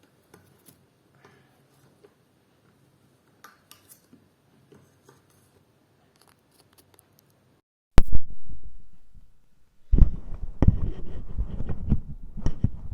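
Near silence with a few faint ticks, then about eight seconds in a sudden loud pop as the BOYA BY-MM1 mic's TRRS plug goes into the phone's headphone jack. After that comes dense scratching and rubbing handling noise with sharp clicks, picked up close by the newly connected mic.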